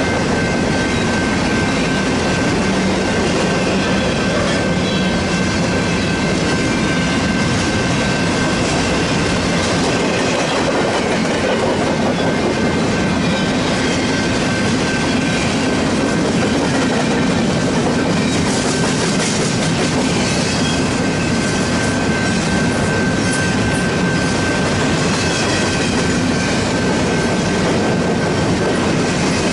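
Empty intermodal freight cars rolling past at speed: a steady rumble and clatter of wheels on rail, with a thin steady high whine over it.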